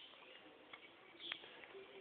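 Persian cat eating: faint scattered clicks and smacks of its chewing, a few of them sharper, about half a second to a second apart.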